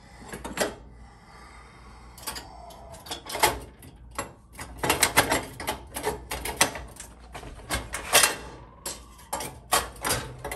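Irregular clicks and clatter of stove-top parts being handled and set back in place, in quick runs of knocks through the middle.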